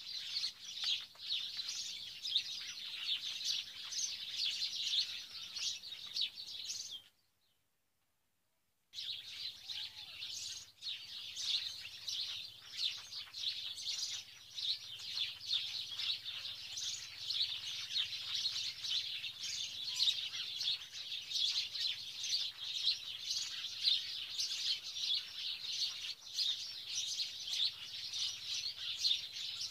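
A dense chorus of small birds chirping steadily. It cuts to silence for about two seconds, some seven seconds in, then carries on as before.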